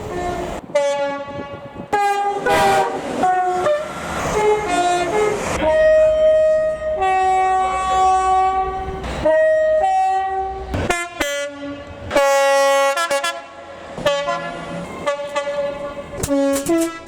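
British train horn sounded in a long string of short and held blasts, its notes changing pitch many times and often two sounding together, as a tune is played on it.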